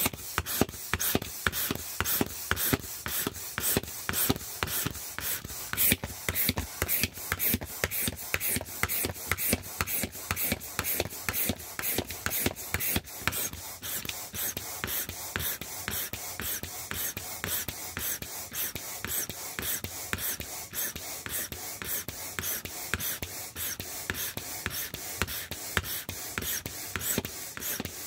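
Air pump forcing air into a deflated vinyl inflatable rooster in quick, even puffs, about three a second.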